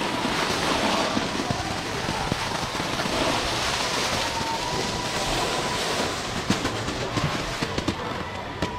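Snowboard sliding and scraping down a slope of man-made indoor snow, a steady hiss, with a run of sharp clicks and knocks in the last couple of seconds.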